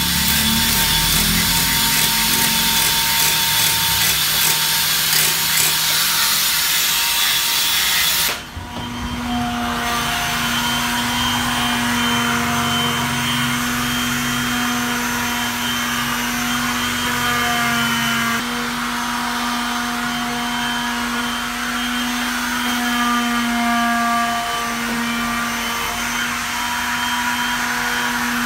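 Angle grinder working the edge of a plywood speaker cabinet, a harsh steady whir. About eight seconds in it cuts to an electric sander sanding the filled cabinet, its motor running with a steady pitched hum.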